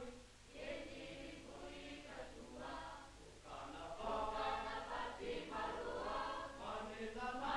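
A choir singing in phrases, with a steady low hum underneath.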